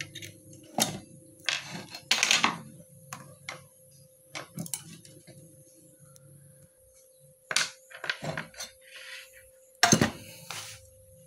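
Small hard clicks, taps and short rattles of components and tools being handled on a workbench, with a faint steady tone underneath.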